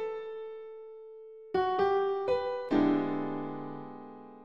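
Short piano jingle. A held note fades away, then a few quick single notes lead into a final chord that rings out and slowly dies away.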